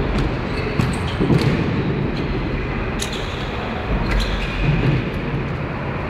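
Indoor futsal game on a hard court in an echoing hall: a steady hiss with scattered sharp knocks from the ball being kicked and shoes hitting the floor.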